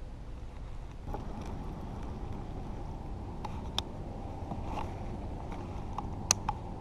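A few light clicks and knocks from handling a baitcasting rod and reel in a plastic kayak, the sharpest near the end, over a low steady background rumble.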